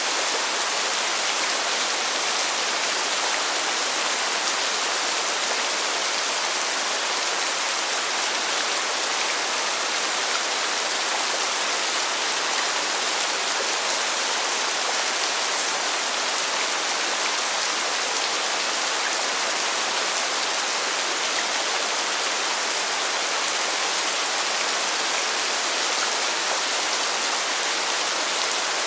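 Steady rain falling, a constant even hiss of drops with faint patter, unchanging throughout.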